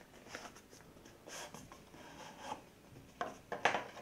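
Cardboard outer sleeve of a Samsung Galaxy Note 8 retail box being slid off the inner box: a series of short scraping rubs of card on card, loudest near the end.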